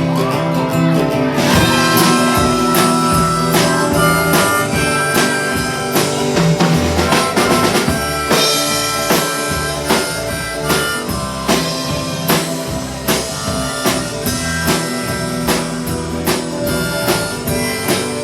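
Live band playing an instrumental intro: a held lead melody over strummed guitar, bass and drum kit, with no singing yet.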